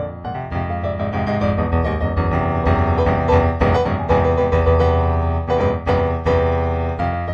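Improvised solo piano background music, sustained chords with melody notes on top, swelling a little in the middle.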